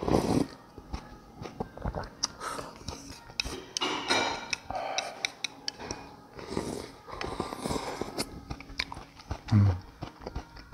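Noodle-soup broth being drunk from a small bowl held at the mouth, picked up close: a series of short slurps and sips with swallowing and mouth noises between. A low thump comes near the end.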